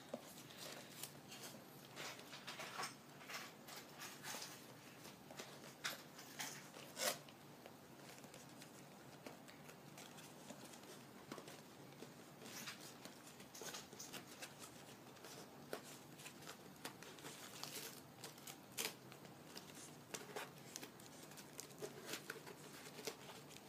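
Faint, scattered clicks, snips and crinkles of cups, masking tape and scissors being handled and cut, with a few sharper clicks about seven and nineteen seconds in.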